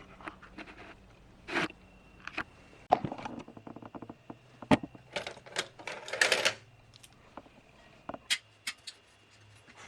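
Hands working on bicycle parts with tools: irregular clicks and knocks with a few brief scrapes, one sharp knock a little before the middle.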